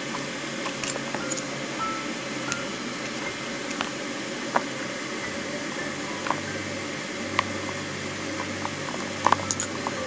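Small scattered clicks and taps from handling a metal shoe buckle and a leather shoe latchet, several coming close together near the end, over a steady low hum.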